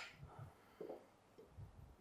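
Near silence: kitchen room tone with a few faint, soft knocks.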